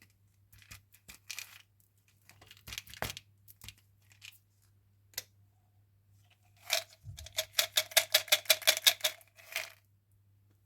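Chewing-gum pack wrapper being handled and torn open: scattered soft crinkles and rustles, then, past the middle, a quick run of about a dozen rasping tearing strokes, roughly five a second, the loudest part.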